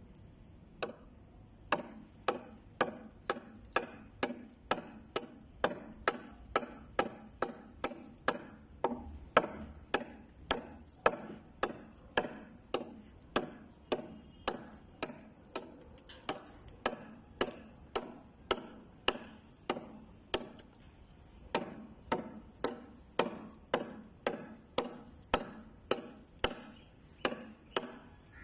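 A stag-handled Bowie knife chopping into an old wooden beam: a steady run of sharp chopping strikes, a little under two a second, with a brief pause about three-quarters of the way through.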